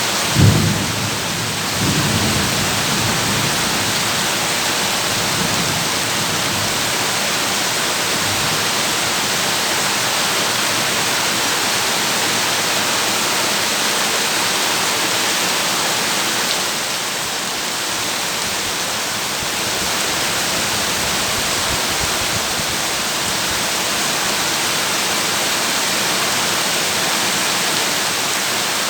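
Heavy rain drumming steadily on a tin roof, an even hiss throughout. Just after the start a low rumble of thunder swells and dies away over about two seconds.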